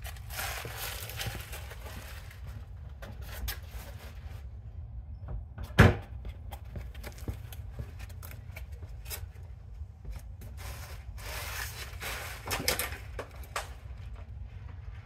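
Handling noise on a concrete walkway: a plastic bag crinkling and rustling, scattered knocks and scuffs, and one sharp thump about six seconds in that is the loudest sound. Work boots scuff on the concrete later on, over a steady low rumble.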